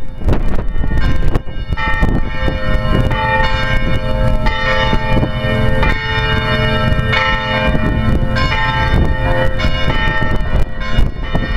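Church bells ringing: a series of strikes, each leaving long overlapping ringing tones, under heavy wind rumble on the microphone.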